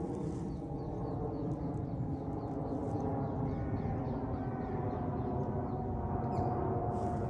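Boeing 777-300ER's GE90-115B turbofan engines passing overhead: a steady jet rumble with a whining tone that slowly falls in pitch as it grows louder. Short high chirps repeat faintly above it.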